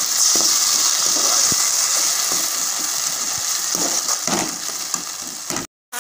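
Diluted masala sizzling in a hot aluminium kadai with onions and capsicum, as a perforated metal ladle stirs and scrapes the pan in repeated short strokes. The sound breaks off completely for a moment near the end.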